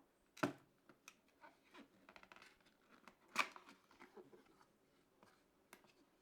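Faint clicks and handling noises of hands working on PC hardware, with two sharper plastic-and-metal clacks, about half a second in and about three and a half seconds in.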